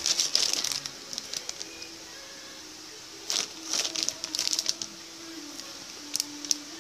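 Clear plastic bags holding plastic model kit runners crinkling as they are handled. The crinkling comes in three bunches: at the start, around the middle, and briefly near the end.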